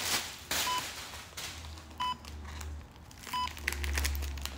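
Electronic beeper of a stabilizing phone tripod giving short, single-pitched beeps about every 1.3 seconds, three in all, which the owner takes for a low-battery warning.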